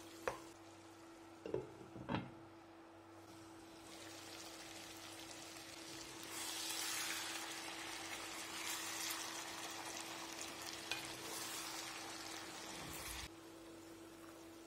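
Lamb and potatoes sizzling faintly in a deep frying pan while a wooden spatula stirs them, with a couple of light knocks near the start. The sizzle grows louder about six seconds in and cuts off suddenly shortly before the end.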